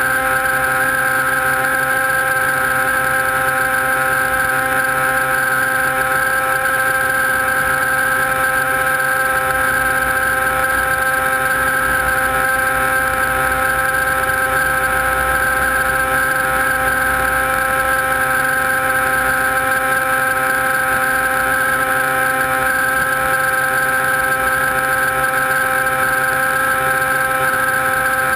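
Drone's electric motors and propellers running steadily while it hovers, picked up by the camera on board: a constant whine made of several held tones that stay level throughout.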